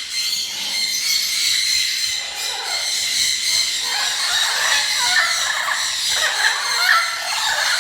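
Many caged birds chirping and chattering together without a break, with louder, lower calls joining from about four seconds in.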